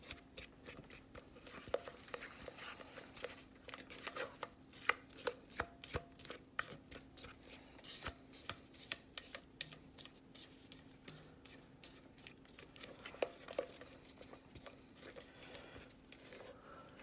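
Spatula scraping and knocking against the inside of a stainless steel mixing bowl as thick cake batter is scraped out, making a run of irregular clicks and scrapes.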